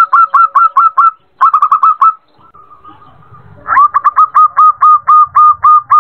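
Female zebra dove (perkutut) calling to a male: rapid runs of short, clipped notes, about six to eight a second. Three runs, with a pause of about a second and a half before the last and longest.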